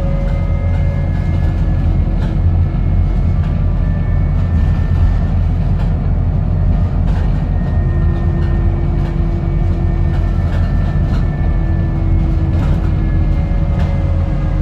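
Inside a Wright New Routemaster hybrid double-decker bus under way: a steady low drone of the drivetrain and tyres, with thin whining tones that shift slowly in pitch as the bus changes speed, and occasional small rattles.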